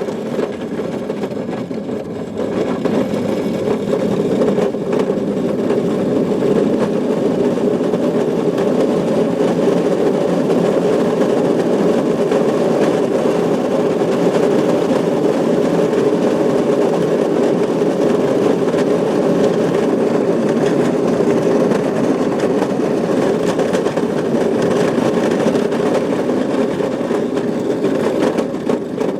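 Electric motor of a battery-powered ride-on toy go-kart, whirring steadily as it drives.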